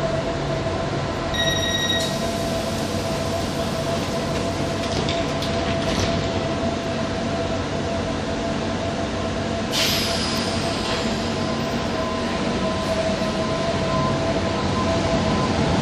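Tyne and Wear Metro Class 994 Metrocar standing at an underground platform, giving a steady hum with a held whine. A short electronic beep sounds about a second and a half in, and a sudden air hiss about ten seconds in. Near the end the sound grows as the train begins to pull away.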